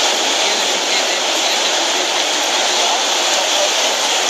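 Beach ambience: a steady rushing noise of surf washing up onto the shore, without pause or change.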